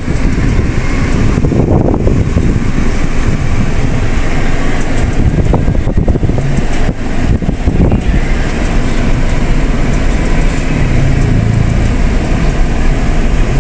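Car on the move, heard from inside the cabin: steady engine and road rumble.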